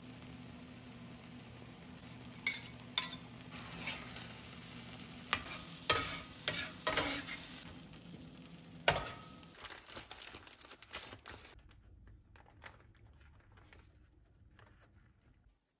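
Beaten eggs with tomatoes and onions sizzling in a stainless steel frying pan, with sharp scrapes and knocks of a utensil against the pan as the eggs are stirred and scrambled, mostly between about two and nine seconds in. Later the sizzle fades out, and near the end there is faint crinkling of a plastic bread bag.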